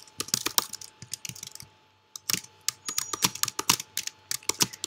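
Typing on a computer keyboard: quick runs of keystroke clicks, with a short pause about two seconds in.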